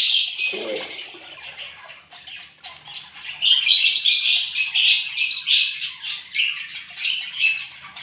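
A group of ducklings peeping, many short high-pitched calls overlapping, while they are hand-fed bread. The calls thin out about a second in and grow dense again from about three and a half seconds in.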